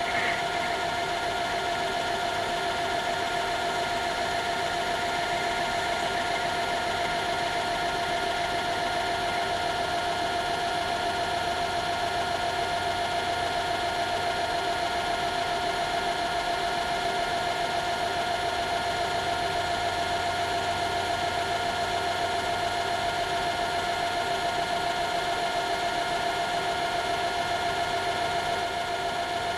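Metal lathe running steadily under power with a constant whine, taking a light finishing cut on the piston stock.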